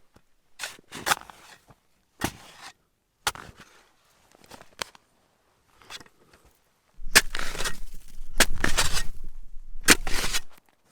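Crunching and scraping in snow: a few separate crunches, then about seven seconds in a dense stretch of crunching with a low rumble under it, lasting about three seconds.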